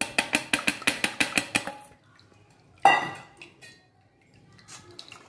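Steel kitchen utensils clinking while batter is strained through a stainless steel mesh strainer: a quick run of taps, about eight a second for two seconds, then one ringing metal clink about three seconds in, and a few faint taps near the end.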